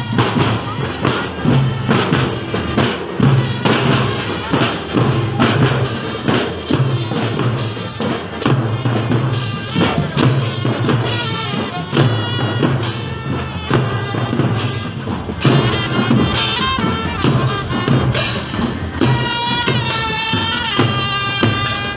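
Marching drum band playing: drums keep up a steady, driving beat of strikes with a repeating low drum pattern underneath. Sustained melodic notes stand out over the drums in the last few seconds.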